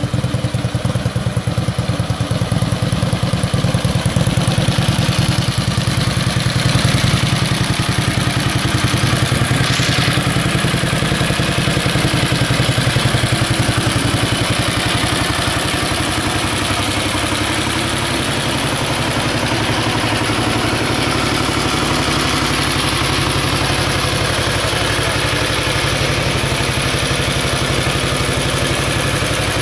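1915 Harley-Davidson F-head V-twin engine running with an even stream of firing pulses, first under way with the rider aboard, then idling steadily with the bike parked from about halfway.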